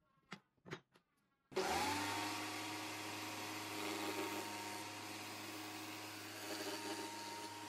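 A few light taps, then an electric jigsaw in a homemade jigsaw table switches on about a second and a half in, its motor rising to speed and then running steadily as the blade cuts into a pallet-wood board.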